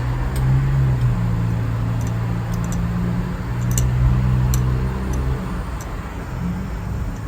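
Honda Civic's B-series four-cylinder engine idling steadily, with light high-pitched ticking over the top.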